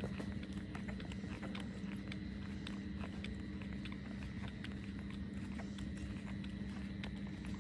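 Newborn puppies suckling at their mother's teats: many quick, irregular wet smacking clicks, over a steady background hum.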